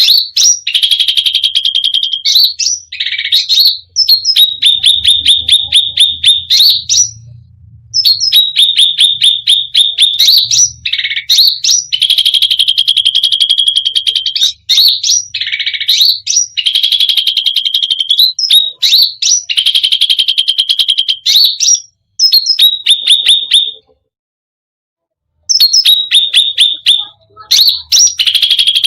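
A cucak rante songbird singing a loud, fast, rattling song: runs of rapid repeated notes around one high pitch, with quick upward sweeps and short pauses between phrases. The song breaks off completely for about a second and a half near the end, then resumes.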